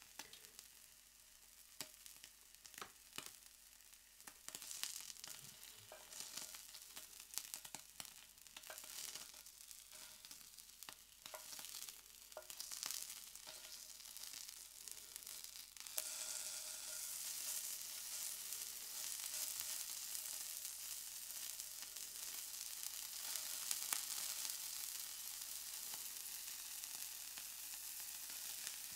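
Cubes of A5 Japanese wagyu sizzling on a hot plate as their fat renders out, with scattered crackles and pops. About halfway through the sizzle turns denser, steadier and a little louder.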